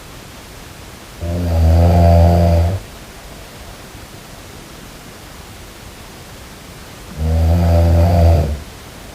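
A person snoring: two long, low, buzzing snores about six seconds apart, each lasting about a second and a half, over a steady hiss.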